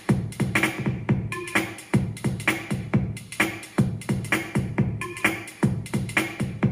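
Electronic dance music with a steady, quick drum-machine beat and punchy bass hits.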